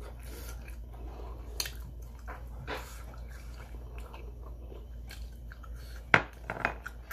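A person chewing and biting sauce-glazed spicy fried chicken, with scattered soft clicks and crunches and one sharp, louder click about six seconds in.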